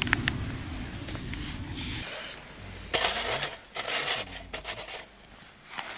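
Rustling and scraping as a self-heating cooking bag is handled, in two short, loud bursts about three and four seconds in.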